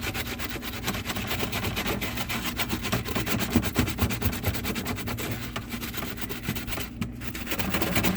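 Damp Norwex EnviroSponge scrubbing back and forth on a stuck-on spill inside a fridge: a rapid, rough rubbing with a brief pause about seven seconds in.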